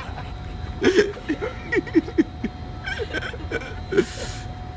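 A man laughing in a string of short chuckles, with a brief hiss near the end.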